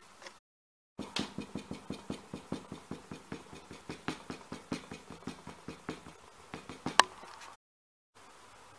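Small hammer tapping rapidly along the edge of suede leather pieces laid on a cutting mat, about four or five light taps a second, setting down a freshly glued seam. One much harder strike comes near the end.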